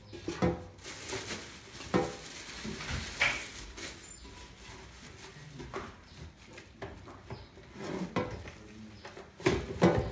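Air fryer basket and its deep non-stick dish being handled: a run of sharp knocks and clatter as the parts are moved and set down.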